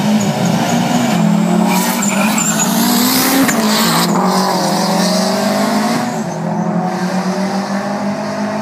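Two race cars launching off the start line and accelerating hard down a drag strip. Their engines rev up, shift gear and rev up again as they pass close, with tyre noise around the launch, then they carry on down the strip a little fainter.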